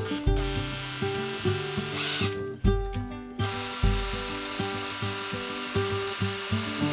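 Power drill running into wood in two runs, with a short pause about two and a half seconds in and a louder moment just before it. Background music plays throughout.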